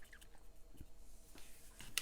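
A few faint light clicks and taps of paper and cardstock being handled, over low room tone.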